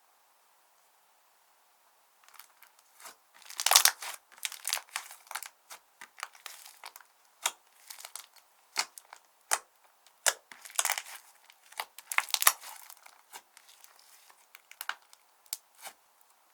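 Slime being squished, folded and stretched by hand, making irregular sticky crackles and pops that start about two seconds in.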